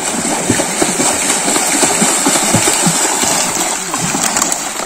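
Continuous loud splashing of water as a swimmer on a plastic-bottle raft kicks his legs and paddles with his arms.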